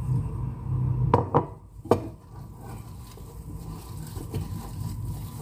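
Kitchenware set down on a counter: three sharp knocks about a second in and again near the two-second mark. After that comes faint squishing as gloved hands knead minced beef with oats in a bowl.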